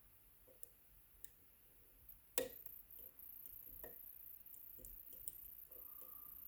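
Faint, scattered metallic clicks of a pick and tension tool working in an Agent LS5 dimple lock, with one sharper click about two and a half seconds in, followed by a faint steady high hiss.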